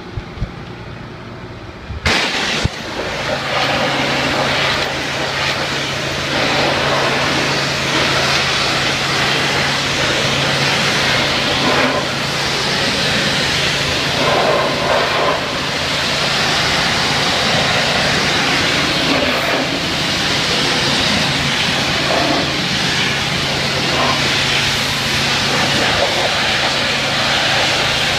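Pressure washer spraying: the high-pressure jet from the wand hisses steadily against the steel of a dumpster, starting suddenly about two seconds in, over a steady low hum of the machine's motor and pump.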